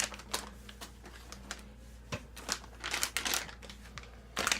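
Packaging of a set of RC truck tires being handled and opened: crinkling and irregular small clicks and rustles, growing busier near the end.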